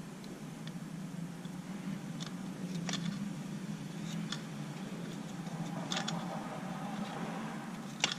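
Scattered light clicks and taps of small tools on an instrument-cluster circuit board during solder rework, with a sharper click near the end, over a steady low hum.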